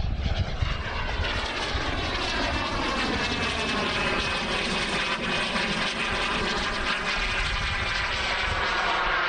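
Aircraft engine droning steadily in flight, with slowly shifting pitch bands as it moves, over a gusty wind rumble on the microphone.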